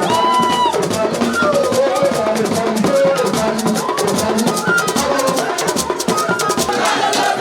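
Percussion music of drums and rattles or shakers playing a fast, busy rhythm. A short held high tone sounds near the start.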